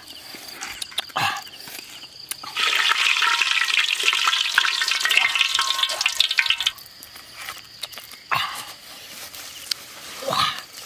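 Hot oil sizzling in a wok: a loud, steady hiss that starts a few seconds in and stops about four seconds later. A few short knocks come before and after it.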